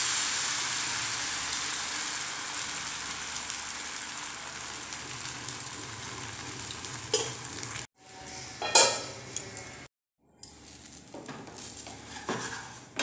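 Semolina batter sizzling as it is ladled into a hot, oil-greased frying pan, the sizzle slowly fading over several seconds. A few sharp utensil knocks against the pan follow, the loudest about nine seconds in.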